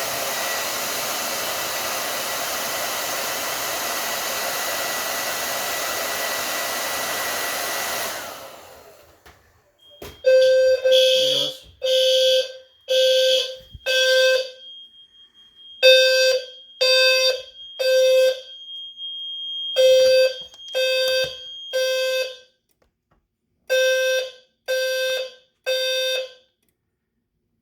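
Hair dryer blowing steadily for about eight seconds to heat a Siemens DT-11 heat detector until it trips. About two seconds after the dryer stops, a low-frequency fire alarm sounder starts: short, buzzy, low tones in repeating groups of three (the temporal-three evacuation pattern). A thin, steady high tone runs under the first several groups.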